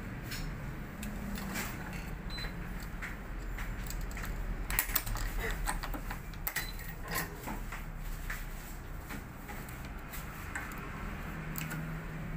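Scattered light clicks and ticks of a tennis racket being strung by hand on a stringing machine: string pulled and woven through the stringbed, with clamps set against the strings. The clicks come thickest in the middle.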